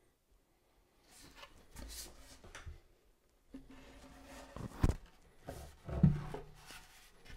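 A wooden floating shelf being handled and pushed against the wall while its holes are lined up with steel bracket rods: rubbing and scraping, then two sharp knocks a little over a second apart near the end.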